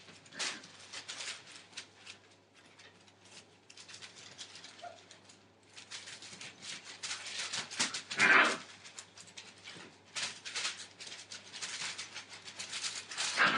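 Five-week-old Entlebucher Mountain Dog puppies scampering and tussling on newspaper, the paper crinkling and rustling under their paws in uneven bursts. A short, loud puppy yelp about eight seconds in.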